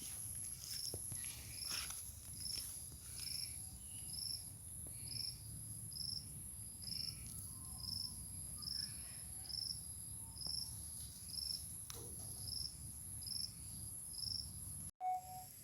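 Insects calling: a steady, very high-pitched trill with a separate short chirp repeating regularly about twice a second. The sound drops out briefly near the end.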